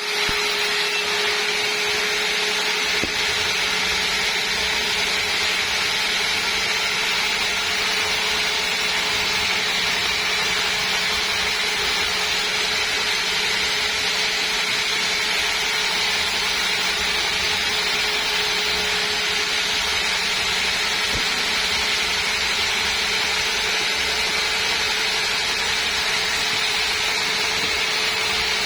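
Sawmill saw running steadily: a constant mechanical hiss with a steady tone through it, with no change or break.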